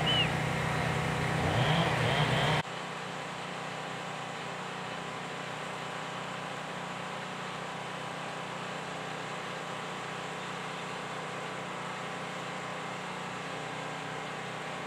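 Steady engine hum from outdoor machinery, with a short high chirp near the start. About two and a half seconds in, the sound drops abruptly to a fainter, even engine drone that runs on unchanged.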